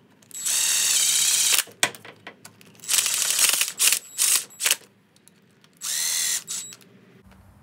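Power driver with a 14 mm 12-point socket running cylinder head bolts down in about five short runs, the longest just over a second, with small clicks between runs. The bolts are only being snugged down, not yet torqued.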